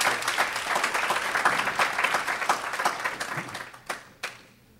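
Audience applauding, a dense patter of many hands that dies away about three and a half seconds in, with a few last single claps.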